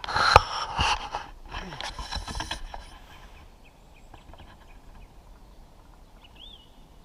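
Footsteps crunching and rustling through fallen branches and brush, with several sharp twig snaps, dying away after about three seconds into quiet woodland background. Near the end a bird gives one short whistled call.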